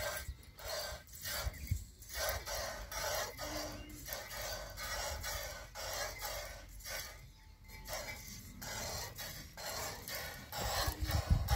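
Milk squirting in a steady rhythm of short hissing streams into a pail as a cow is milked by hand. Near the end a louder low rumble comes in.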